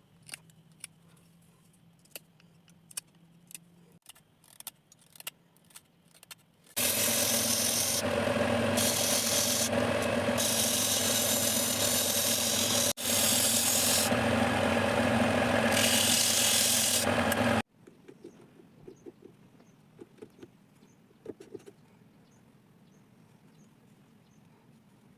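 Small clicks and taps of handling or hand work on a wooden piece, then an electric power tool working the wood runs steadily for about ten seconds, with a brief dropout partway, before stopping suddenly; faint taps follow.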